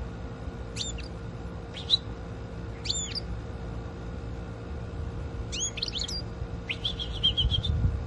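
European goldfinch calling: three short, sharp chirps about a second apart, then quicker runs of twittering notes in the second half. A steady low hum and rumble lies underneath.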